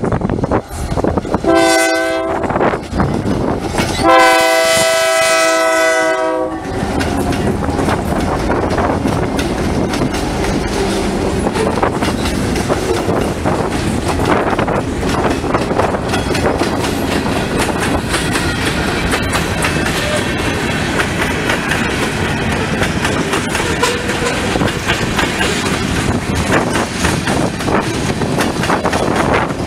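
Freight locomotive air horn sounding a short blast, then a longer one, as the train nears the crossing. The diesel locomotives and then the loaded railcars roll slowly past close by, rumbling and clacking over the rails, with wind on the microphone.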